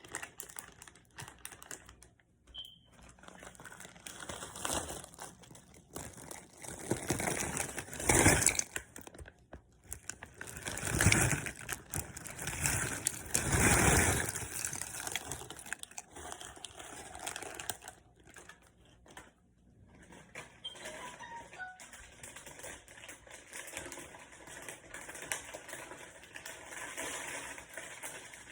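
Rustling and handling noises from a snack being prepared, with scattered small clicks and knocks and several louder rustling surges partway through.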